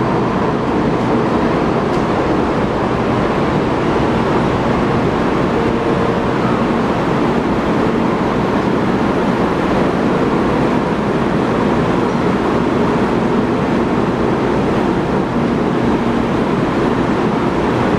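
Steady hum and hiss of a Taiwan High Speed Rail 700T train standing at an enclosed station platform, holding one even level throughout.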